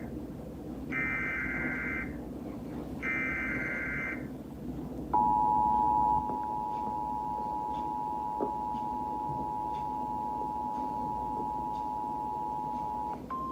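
Emergency Alert System test: the last two SAME data bursts of the alert header, screechy digital squawks about a second each, followed by the steady two-tone EAS attention signal held for about eight seconds, which near the end gives way to a single steady tone, the NOAA Weather Radio warning alarm tone.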